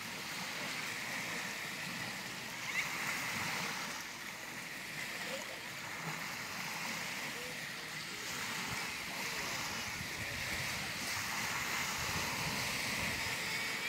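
Small waves washing on a lakeshore: a steady wash of water.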